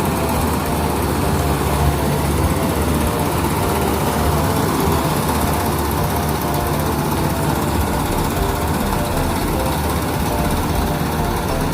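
Kubota rice combine harvester running steadily, its engine and machinery giving a constant hum with a steady higher tone over it.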